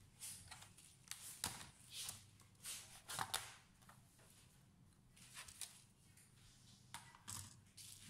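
Dell Inspiron 3511 laptop's bottom cover being pried off by hand: a run of short clicks and scrapes as its clips let go and the panel is lifted away. The clicks are thickest in the first three and a half seconds, with a few more later.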